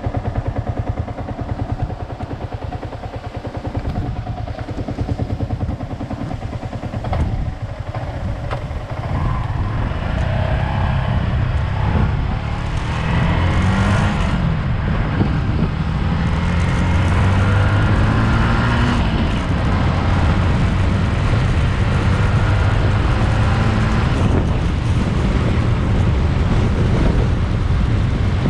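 Vehicle engine running and rising and falling in pitch as it speeds up, with a heavy low rumble that grows louder from about ten seconds in.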